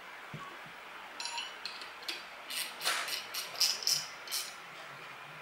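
A 10 mm steel spanner clinking lightly against the bolts and end plate of an air-suspension airbag as the plate bolts are tightened: a string of short metallic clicks, several a second, starting about a second in.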